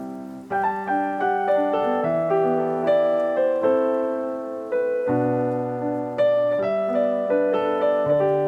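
Background piano music: a gentle melody of single notes and chords, struck about twice a second and each fading away.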